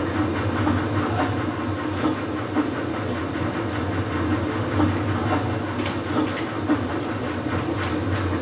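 Recorded sound of a steam train leaving the station and running along the tracks: a steady, even train noise with a few sharp clicks in the second half.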